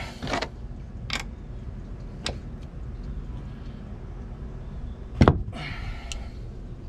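Hand screwdriver working at a seat-pedestal base-plate screw that is stuck fast in 5200 marine sealant: a few light clicks of the tool, then one sharp knock about five seconds in.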